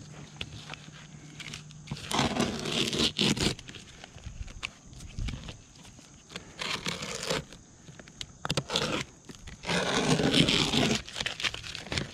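Utility knife cutting through synthetic roofing underlayment and asphalt shingles around a round hole for a chimney pipe, in several separate noisy strokes, the longest about a second and a half.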